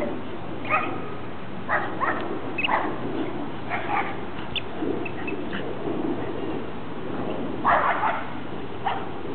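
Neighbour's dogs barking in short single barks and quick pairs, with a louder burst of barking about eight seconds in.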